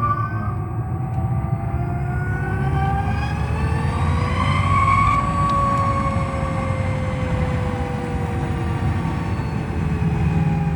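Zero electric motorcycle's motor whining, rising in pitch as the bike accelerates until about halfway through, then slowly falling as it eases off, over a steady low road rumble. Heard from a microphone inside the bike's cargo space.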